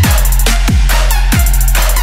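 Loud electronic background music with a steady beat: deep bass kicks that drop in pitch, about three in two seconds, over a constant bass line.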